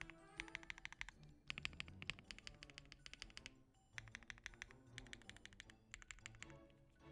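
Fast typing on a Weikav D75 mechanical keyboard with Bsun Apple linear switches, FR4 plate and GMK keycaps: rapid key clacks in four bursts with short pauses between. Soft background music runs under the typing.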